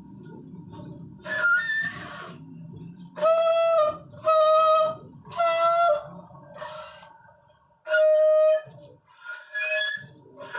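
Saxophone blown in a string of short, loud, shrill honks, about six separate blasts with pauses between them, most on much the same pitch, with a squeakier, wavering note near the start.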